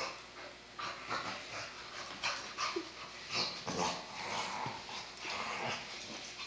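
Two dogs play-wrestling, growling and yipping in irregular bursts.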